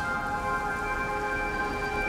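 Soft background music of sustained, held chords over the steady hiss of falling rain.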